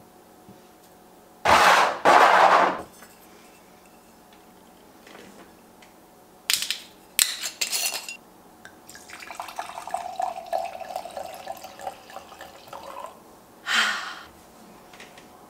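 A wine bottle's cap is twisted open with a few sharp cracks. White wine is then poured into a stemmed wine glass for about four seconds, its pitch rising slightly as the glass fills. Two short, loud rushing noises come before the cap, and another comes after the pour.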